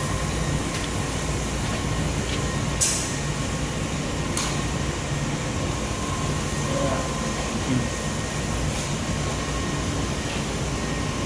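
Extrusion lamination machinery running with a steady mechanical hum and a thin steady high tone, with two short hisses a few seconds in.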